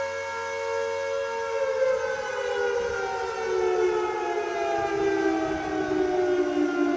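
Air raid siren sounding a held pitch, then winding down, its tone falling slowly from about a second and a half in. Two close pitches sound together, each with a stack of overtones.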